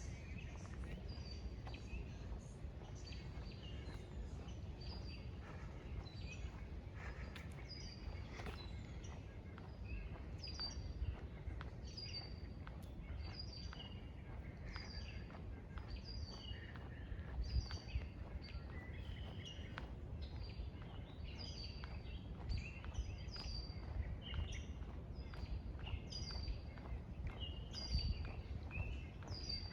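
Wild birds singing, one repeating a short, high, down-slurred note about once a second, with other birds calling lower. A steady low rumble runs underneath.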